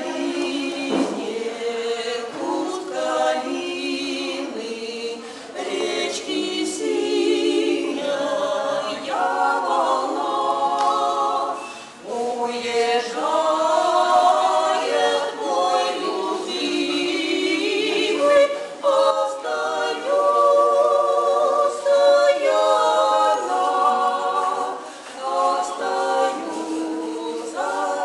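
Women's vocal trio singing a cappella in harmony, the held notes wavering with vibrato, with short breaks for breath about twelve seconds in and again near twenty-five seconds.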